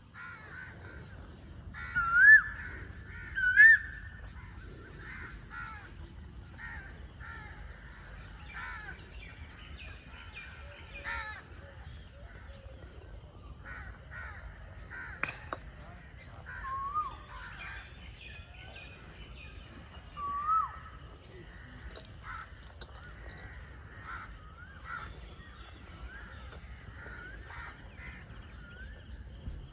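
Birds calling outdoors: a few short rising calls, the loudest two about two and three and a half seconds in, over a high pulsing trill that repeats about once a second.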